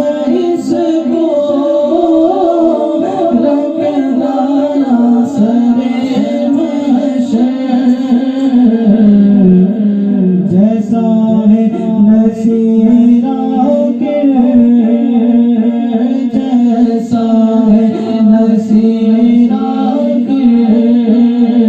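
Naat singing: a voice sings a drawn-out devotional melody over a steady low drone.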